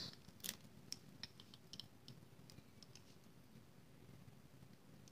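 Faint, scattered plastic clicks from a clear acrylic stamp block and clear photopolymer stamps being handled and mounted, about a dozen in the first two seconds and a few after, otherwise near silence.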